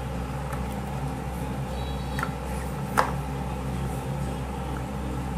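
Steady low background hum with a couple of light taps from handling a small soldering iron against a tip thermometer, the louder, sharper tap about three seconds in.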